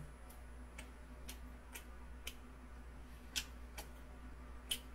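Faint room tone with a steady low hum, broken by about eight soft, irregularly spaced sharp clicks, the clearest a little past the middle and near the end.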